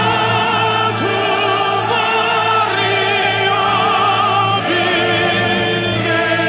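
Music: operatic singing with strong vibrato, long held notes that change pitch every second or two.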